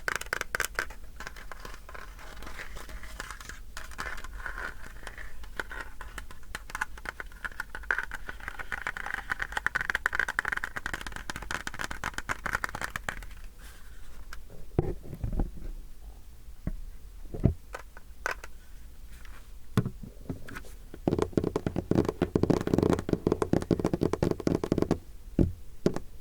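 Close-miked scratching and crinkling of an everyday object being handled. A dense, fast crackle runs through the first half, a few separate knocks come in the middle, and near the end there is another, lower and denser spell of crackling.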